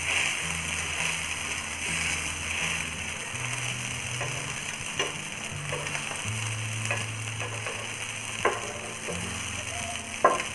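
Potato tikkis sizzling as they shallow-fry on a tava, with a few sharp clicks of a steel spatula against the pan about halfway through and near the end.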